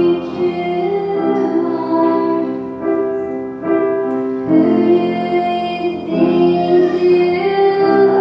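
Two teenage girls singing a slow pop ballad duet into microphones with piano accompaniment, holding long notes.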